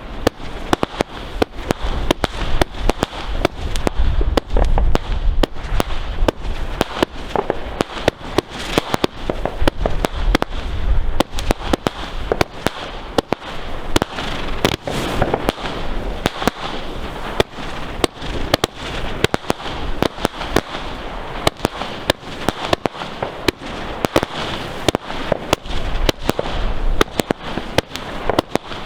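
New Year's midnight fireworks going off in a dense, continuous barrage of sharp bangs and crackles, with deeper booms now and then.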